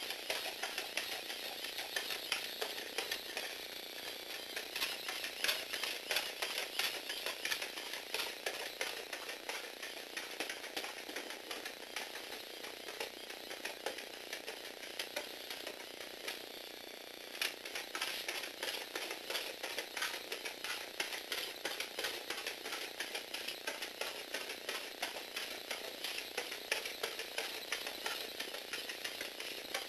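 Lego Technic four-legged walking robot running: its small electric motor and plastic gears make a fast, continuous clatter of clicks as the legs step on a wooden floor. The clatter eases briefly about two-thirds of the way through.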